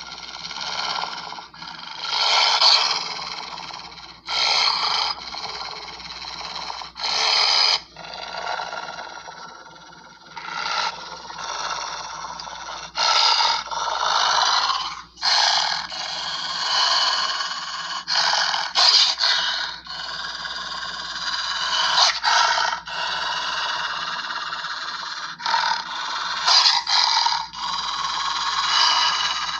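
A string of raspy growls and snarls, spliced one after another, many of them starting and stopping abruptly.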